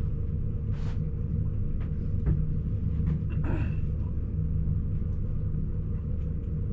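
Boat motor running steadily under way, a continuous low drone, with a few faint knocks.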